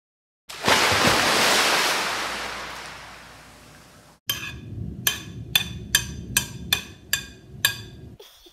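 Edited-in music rather than kitchen sound: a loud crash-like swell that fades over about three seconds, then a percussion beat of sharp clicks, roughly three a second, over a low steady bed.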